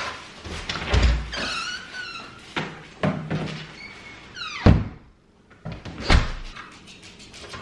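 A house front door being unlatched, opened with squeaks and knocks, then swung shut with a loud thud about two-thirds of the way through, followed by another thump.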